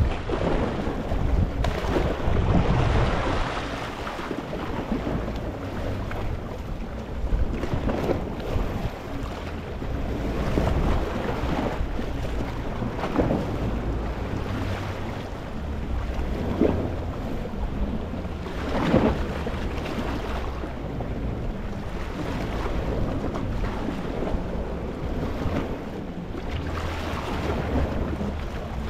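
Gentle sea waves lapping and washing over a rocky shore, each wash swelling briefly every few seconds, over a low wind rumble on the microphone.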